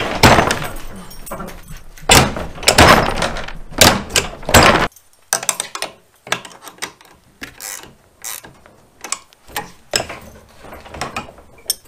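Hand-tool work on a zero-turn mower's motion-control handle. Loud rubbing and handling noise for the first five seconds cuts off abruptly, followed by scattered metal clicks and clinks of a wrench on the handle's bolts.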